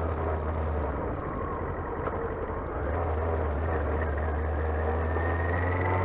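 Yamaha R6's inline-four engine running under way, heard through heavy wind noise on a helmet-mounted mic. The low engine drone drops away about a second in and comes back a couple of seconds later.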